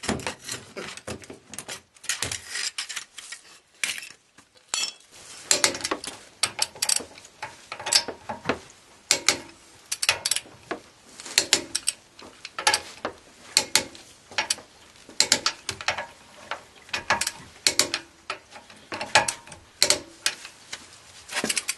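Ratcheting torque wrench clicking in repeated short runs as wheel bolts are tightened. A few metal clanks near the start come from the axle stand being pulled out from under the car.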